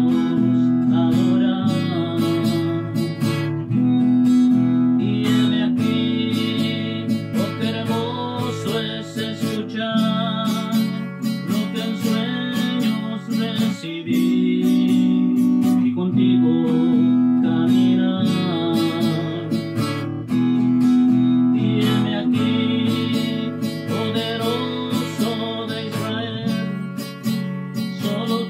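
Cutaway acoustic guitar strummed in a steady rhythm, with a man singing a worship song over it.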